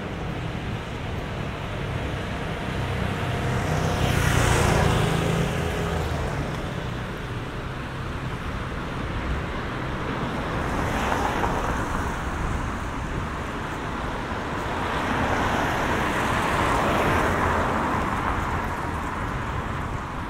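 Cars passing on a rain-wet road: tyre hiss swells and fades as each goes by. The first pass, about four seconds in, is the loudest, with its engine audible under the hiss. Another comes about eleven seconds in, and a longer one near the end.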